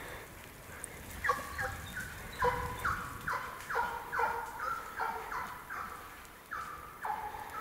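Russian hounds baying as they run a hare by scent: a string of short bays, each falling in pitch, about two to three a second, starting about a second in.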